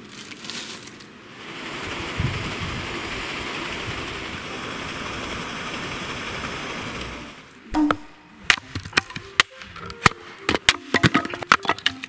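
Firewood being split with a hatchet on a chopping block: a quick run of sharp wooden knocks and cracks starting about eight seconds in. Before it comes a steady, even rushing noise lasting about six seconds.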